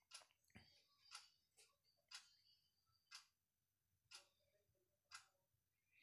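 Near silence with faint, evenly spaced ticks about once a second, a clock-like ticking, and a couple of soft handling sounds in the first second.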